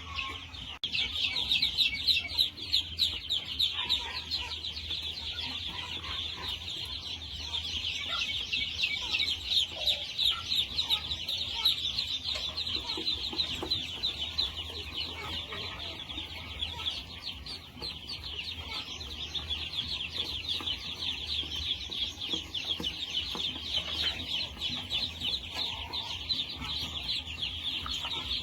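Chickens clucking over a dense, unbroken high-pitched chirring that runs throughout.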